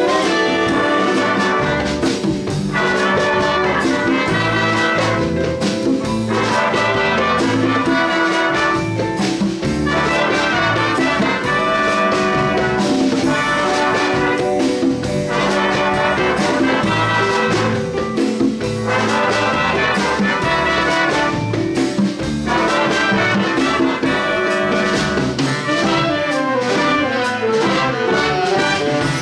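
Big band playing, with the trumpets and trombones of the brass section to the fore over a rhythm section.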